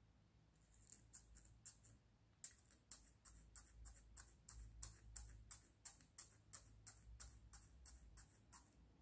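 Metal pick tool clicking and scraping against a small 3D-printed plastic puzzle piece held in the fingers: a run of light, quick ticks, about three or four a second, with a short pause about two seconds in.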